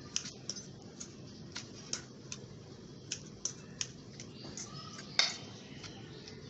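Irregular light clicks and taps of a spoon working through a bowl of spiced mashed potato filling as it is mixed, with one sharper knock about five seconds in.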